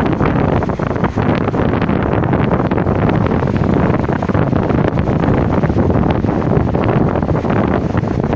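Wind buffeting the microphone: a loud, steady, rumbling rush with crackles throughout.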